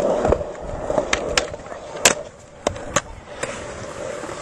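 Skateboard rolling, with a sharp clack at the start and several more sharp knocks and clacks from the board.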